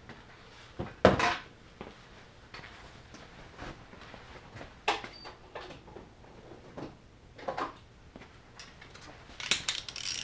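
Intermittent knocks, clinks and clatter of hand tools and metal motorcycle parts being handled, the loudest knock about a second in and a quick run of rattling clicks near the end.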